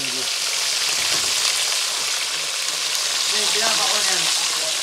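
Whole tilapia frying in hot oil in a pot: a steady, dense sizzle.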